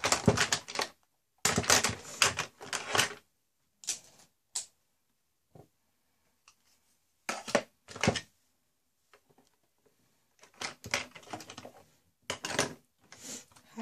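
Irregular clicking and clattering of small hard objects being handled, in several short bursts with quiet gaps between them.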